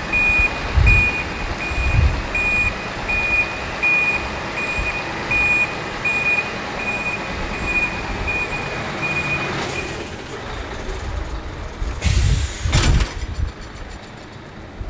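Refuse truck's reversing alarm beeping steadily about every three-quarters of a second over the truck's engine running, stopping about ten seconds in. Louder rumbling and clunks follow about twelve seconds in.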